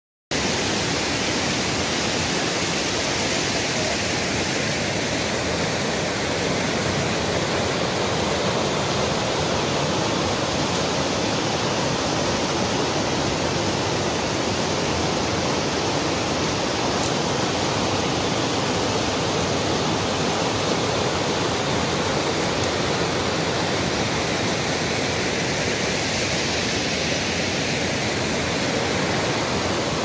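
River water rushing over flat rock ledges in shallow cascades and rapids: a steady, even rush that starts abruptly just after the start.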